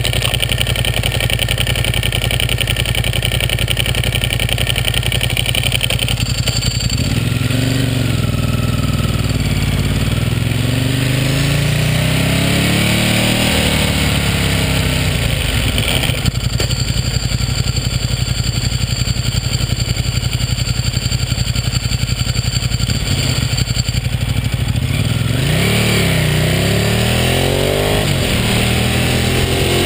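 Ducati superbike's V-twin engine idling steadily, then revving up and down as the bike pulls away and accelerates, with a brief sharp click about sixteen seconds in and more rising and falling revs near the end.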